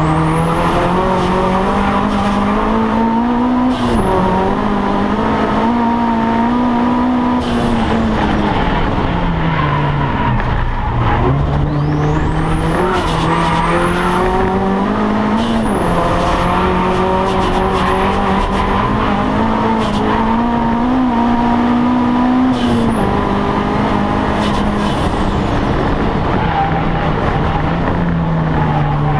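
Audi TT race car's engine heard from inside the cabin at racing speed. The revs climb through the gears, drop sharply at each change and fall away twice as the car slows for corners. A high whine rises with the revs and cuts off at each gear change.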